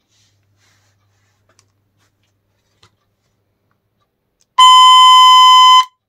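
Acoustic feedback from a homemade electret-microphone amplifier held up to its own speaker: a loud, steady, high-pitched squeal, a strange sound, starts about four and a half seconds in and cuts off abruptly after just over a second. Before it there is only a faint hum. The squeal means the mic is picking up the speaker's output and the amplifier is feeding it back on itself.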